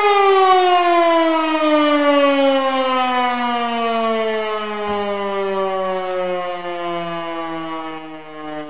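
E57 motor siren winding down: its steady wail drops in a long, slowing fall in pitch and fades as the rotor coasts, with the motor switched off during the 'Feueralarm' signal.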